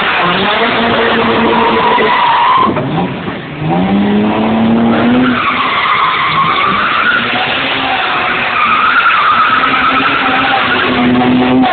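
Drift cars sliding sideways, their engines revving hard while the rear tyres spin and squeal. The engine note drops briefly about three seconds in, then climbs again, and long wavering tyre squeals fill the second half.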